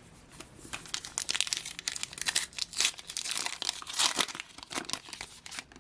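A trading-card pack wrapper being torn open and crinkled by hand: a dense run of irregular crackles and rustles.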